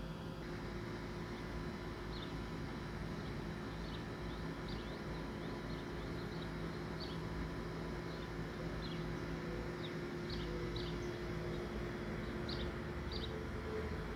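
Faint outdoor ambience: a small bird chirping in short, high notes at irregular intervals, about one a second, over a steady low hum.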